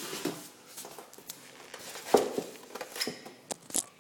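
Packaging being opened and fan parts handled: rustling with scattered knocks and taps, the sharpest knock about two seconds in and a couple more near the end.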